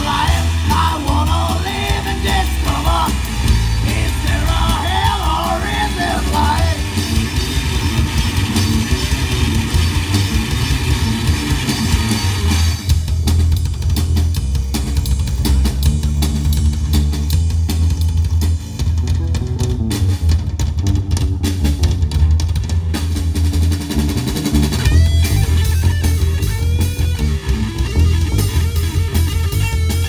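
Live rock power trio of electric guitar, bass guitar and drum kit playing an instrumental passage. A bending lead line is busy over the first several seconds, drums and bass carry the middle with little on top, and the lead comes back near the end.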